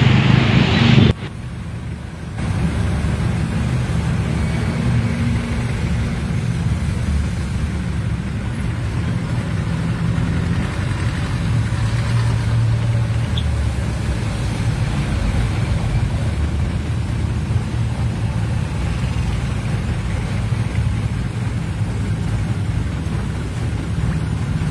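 A vehicle's engine running steadily, heard from inside the vehicle, a low rumble under an even hiss. A louder rush in the first second cuts off suddenly.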